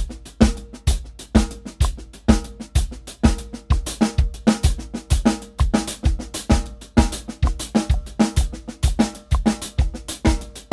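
Acoustic drum kit played in a steady practice pattern at 128 BPM, with the bass drum on each beat under quick snare and hi-hat strokes.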